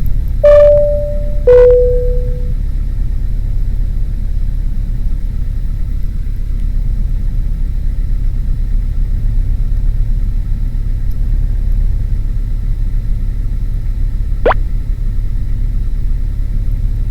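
Light aircraft's piston engine running steadily, a low rumble heard through the cockpit intercom. Two short tones, the second lower, sound near the start, and a quick rising chirp sounds near the end.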